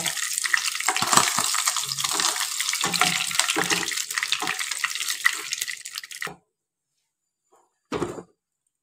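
Paneer cubes frying in hot oil in a non-stick kadai: a steady sizzle with crackles and the scrape of a slotted spoon as pieces are lifted out. The sizzle cuts off suddenly about six seconds in, and a short noise follows near the end.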